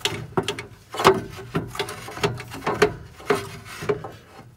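Metal transmission pan being wrestled against the exhaust crossover pipe under the truck: a string of clunks and scrapes of metal on metal, about two a second, as the pan jams and will not come out.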